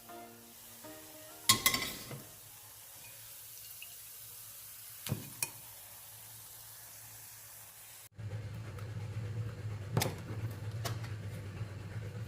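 Coconut cream simmering in a pot on the stove, with a few sharp knocks of a utensil against the pot. About two-thirds of the way in, a steady low hum comes in under the simmering.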